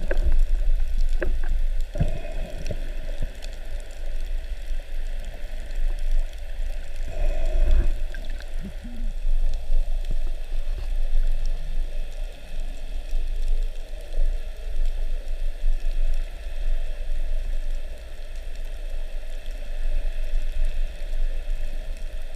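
Underwater water noise picked up through a camera housing in a strong current: a steady low rumble with a constant hiss, and a few sharp clicks and knocks in the first half.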